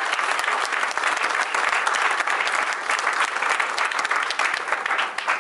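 A large audience clapping in steady applause, dying down at the very end.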